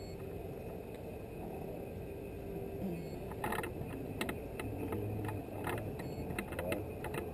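A vehicle running steadily as it drives slowly along, with scattered rattles and knocks from the ride.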